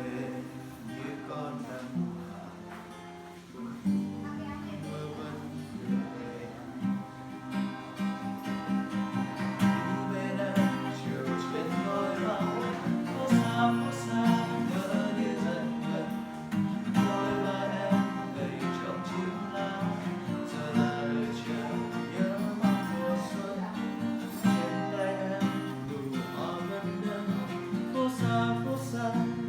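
Music led by plucked and strummed guitar, with a low sustained bass line; it grows fuller and louder about eight seconds in.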